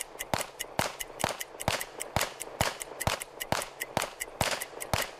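A 9mm Glock 17 pistol firing semi-automatic, one shot per trigger pull, at an even pace of about two shots a second.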